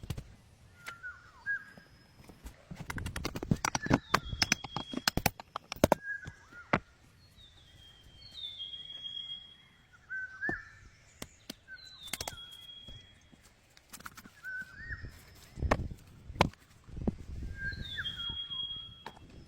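Birdsong: a bird repeats a short call every few seconds, a low hooked note followed by a higher, falling whistle. A quick run of sharp knocks comes a few seconds in, and a few dull thumps come near the end.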